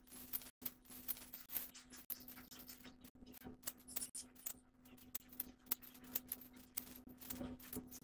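Irregular sharp clicks and ticks, several a second, over a steady low hum.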